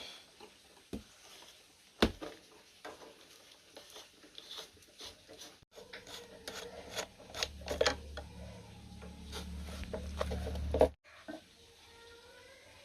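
Clicks, taps and scraping of small parts being handled and worked on an old electric fan. About three seconds before the end, a low motor hum runs for a few seconds and then cuts off suddenly.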